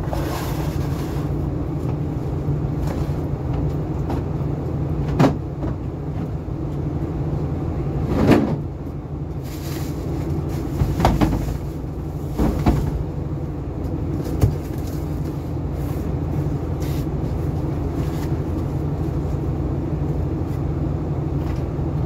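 A steady low machinery drone, with a series of knocks and thuds from produce and crates being shifted and set down, the loudest about eight seconds in.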